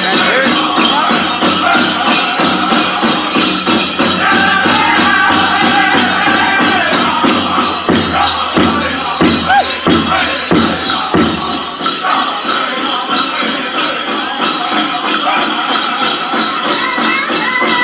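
Powwow drum group singing a chicken dance song over a steady drum beat, with the jingling of the dancers' bells, and a run of louder drum beats about halfway through.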